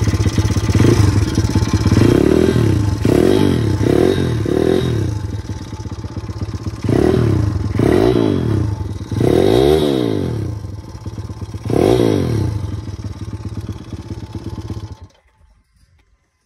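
Pit bike's small single-cylinder four-stroke engine, just reassembled after repairs, running and revved up and down in short blips about eight times, then cut off suddenly about fifteen seconds in.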